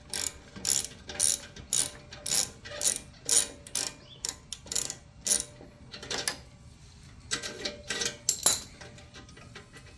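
Socket ratchet wrench clicking as it loosens the 9/16 exhaust clamp nut on a Harley-Davidson muffler. The clicks come in an even run, about two strokes a second for the first five seconds, then a few more irregular strokes before stopping.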